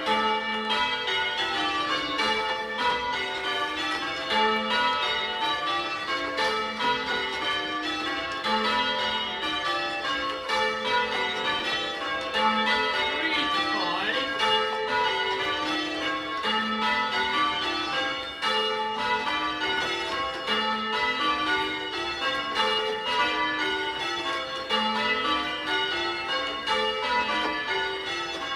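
Church bells being change-rung by a band of ringers: bells struck one after another in steady stepwise rows that repeat again and again, their tones ringing on over each other.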